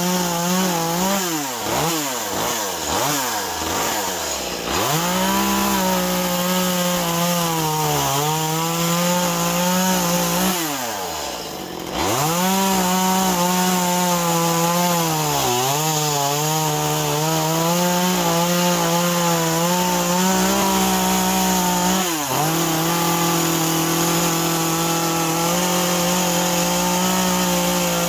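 Echo two-stroke chainsaw cutting into a solid wood block, running at high revs with the engine note sagging each time the chain bites into the wood and picking back up. In the first few seconds the revs swing up and down several times. About eleven seconds in the saw drops off toward idle for a moment, then revs back up and runs mostly steady under load.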